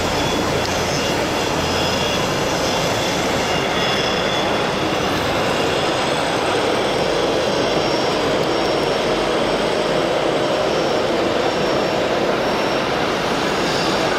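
Steady din of a large exhibition hall, with radio-controlled model trucks running on a dirt course. The noise holds at an even level with no distinct events.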